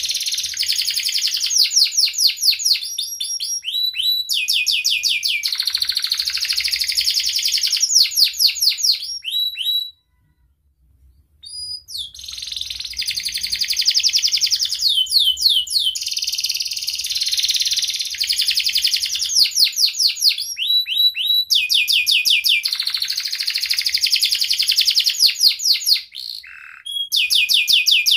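Domestic canary singing a long, high-pitched song of fast trills and rolled notes. It breaks off for about two seconds about ten seconds in, then carries on.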